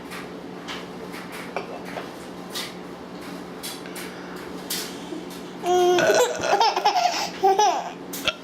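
Quiet room with a steady low hum, then loud, high-pitched laughter starts about two-thirds of the way in and runs in quick peaks.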